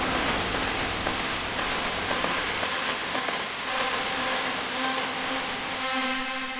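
Garment-factory machinery running steadily: a dense mechanical whir with several held humming tones.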